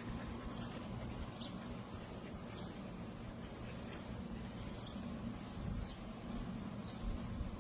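Faint short high bird chirps, roughly one a second, over a steady low hum and rumble.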